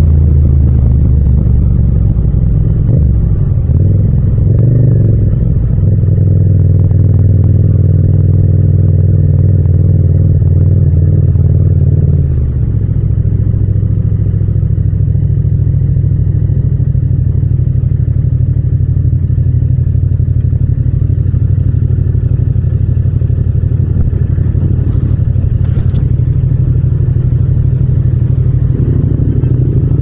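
Yamaha MT-07's parallel-twin engine heard from the rider's seat, running at low revs in slow traffic. About twelve seconds in its pitch drops and it settles to a steady idle.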